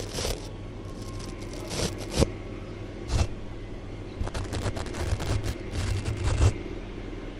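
Close-miked ASMR brushing and scratching strokes on a microphone, with a sharp tap a little past two seconds in and a dense run of crackly scraping in the second half, over a steady low hum.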